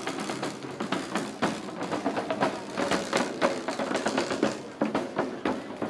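Rope-tensioned side drums beaten with sticks in a quick, busy marching rhythm, close by.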